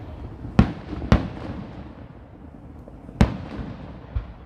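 Fireworks display: shells bursting with sharp bangs, two about half a second apart early on, a third about three seconds in and a fainter one near the end, each trailing off in an echo.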